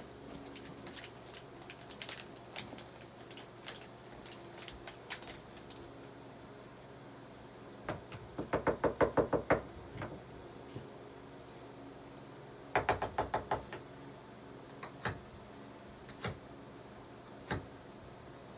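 Scattered light clicks, then two bursts of rapid knocking, about five knocks a second, in the middle. Three single knocks follow near the end, over a faint steady hum.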